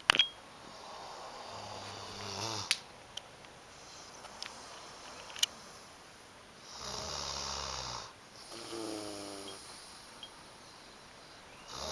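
A person snoring: two low buzzing snores about five seconds apart, the second followed by a short whistling sound, with a few sharp clicks in between.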